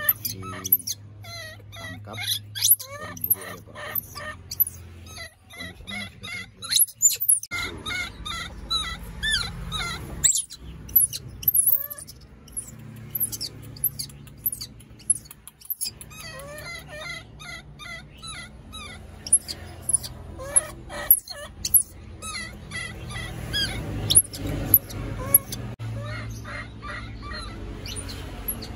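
Baby macaques crying, a stream of short, high-pitched squealing cries that rise and fall in pitch.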